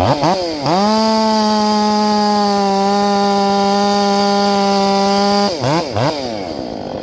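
Ported Stihl MS500i fuel-injected two-stroke chainsaw being blipped twice, then revved to a high, steady wide-open-throttle scream held for about four and a half seconds. Near the end it drops, is blipped twice more, and settles back to idle.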